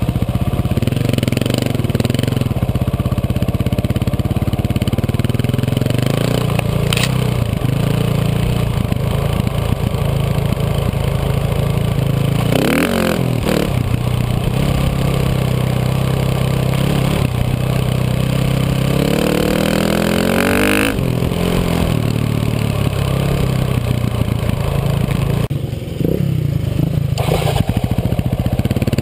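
Dirt bike engine running close to the microphone, the KTM 450's single-cylinder four-stroke. Its revs climb as it accelerates about halfway through and again about two-thirds of the way through.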